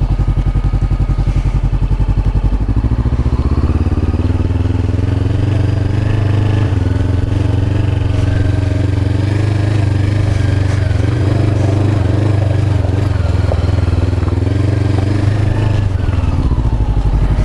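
Honda CB500X's parallel-twin engine running while the bike rides slowly: a steady, pulsing exhaust note, the revs rising and dipping a little.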